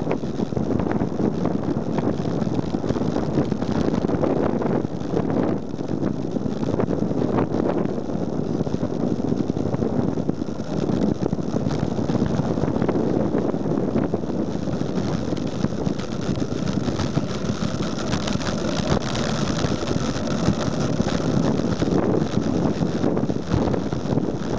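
Wind rushing and buffeting over a camera's microphone carried on a bicycle descending at speed: a steady, dense rushing noise with no break.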